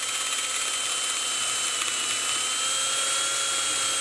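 Power drill running steadily with an eighth-inch bit, drilling out a rivet that holds a metal VIN plate; a steady motor whine.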